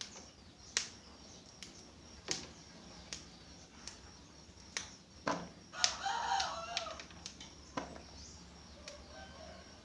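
Scattered sharp clicks and taps, with a bird calling once for about a second, a warbling call around six seconds in.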